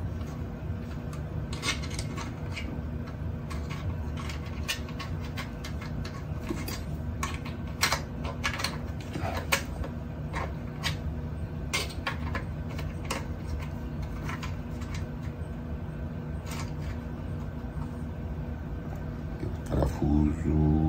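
Light, irregular clicks and taps of small plastic and metal parts being handled and fitted on a 3D printer's bed carriage, over a steady low hum.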